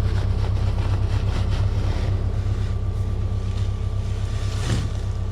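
Tractor engine running steadily at idle with a low, even drone.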